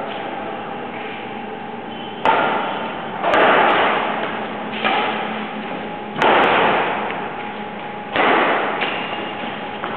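Badminton rackets striking a shuttlecock during a rally: five sharp hits at uneven intervals of one to two seconds, each ringing on in a large echoing hall.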